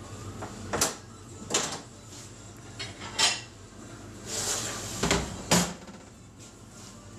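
Kitchen clatter of a ceramic plate and utensils: about half a dozen sharp knocks and clinks against a stainless-steel counter, spread over several seconds, with a short scraping sound a little past the middle.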